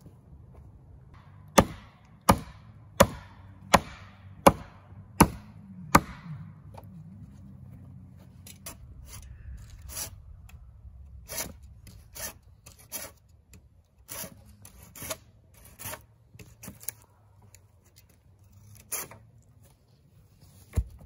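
Wood being chopped with a blade: a run of seven sharp, evenly spaced strikes about three-quarters of a second apart, followed by lighter, irregular strikes and one last sharp hit near the end.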